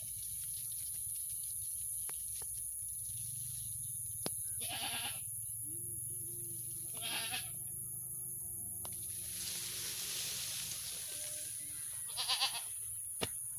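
Goat bleating: three short, wavering bleats, about four and a half seconds in, about seven seconds in, and near the end, over a steady low rumble.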